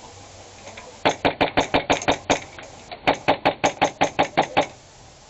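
Airsoft gun firing two quick strings of shots, about seven a second, with a short pause between them.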